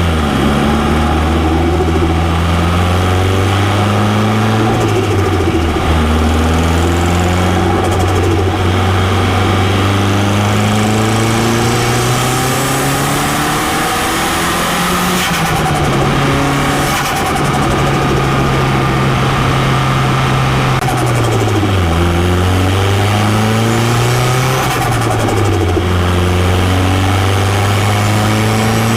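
Turbocharged car engine running at high revs, its pitch dropping and climbing back a few times: once about six seconds in and twice more in the last third.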